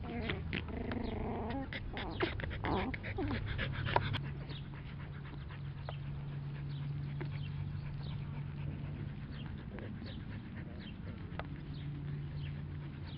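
Norwich Terrier puppies at play: small growls and whines with scuffling clicks over the first three or four seconds, then only soft scattered clicks as they settle against their mother. A steady low hum runs underneath from about four seconds in.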